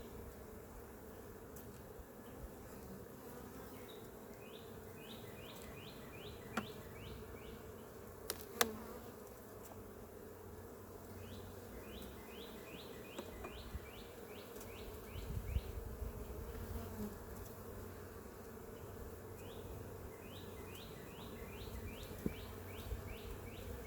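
Honeybees humming steadily around an open hive as its frames are inspected, with bees flying out. A couple of sharp clicks come about six and eight and a half seconds in.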